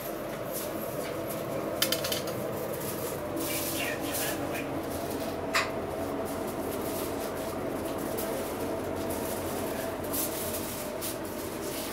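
Steady background hum with faint voices around a charcoal kebab grill, broken by two sharp metallic clicks, about two seconds in and about five and a half seconds in, typical of steel skewers knocking against the grill's edge.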